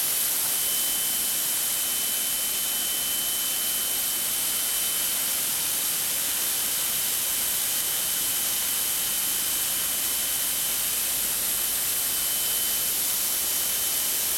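Cat D10 bulldozer's AFFF foam fire suppression system discharging, its nozzles spraying with a steady hiss into the engine bay, engine shut down by the system. A thin steady high tone runs along with it.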